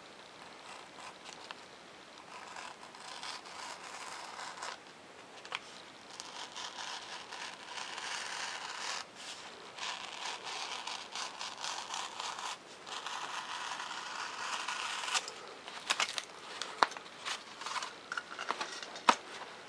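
Hobby knife blade drawn through 3 mm Depron foam sheet and its taped paper template, long scratchy cutting strokes one after another, then a few sharp clicks and taps near the end.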